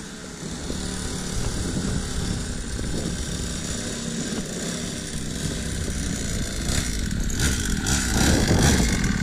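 Small 50cc two-stroke pit bike engine running while ridden, getting louder near the end. It is new, running well on its first start-up.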